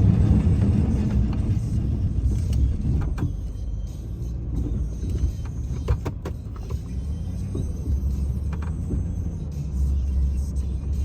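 Low, steady engine rumble of a snow-plowing vehicle at work, with a few short knocks around the middle.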